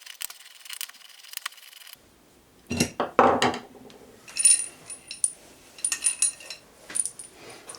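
Metal tools and small metal parts on an X2 mini milling machine as screws are taken out of its gearbox housing: light rapid ticking at first, a couple of heavier knocks about three seconds in, then a run of short, ringing metallic clinks.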